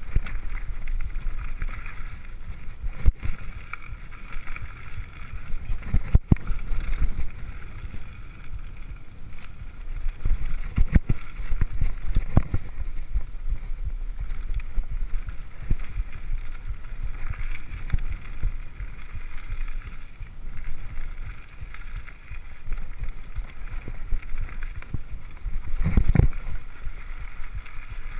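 Mountain bike descending a dirt trail at speed: steady wind rumble on the microphone over tyre and drivetrain noise, with sharp knocks and rattles as the bike hits bumps, the strongest near the end.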